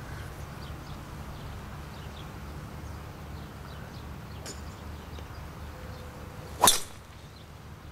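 A driver striking a teed golf ball: one sharp crack at impact late in the swing, over a steady low rumble.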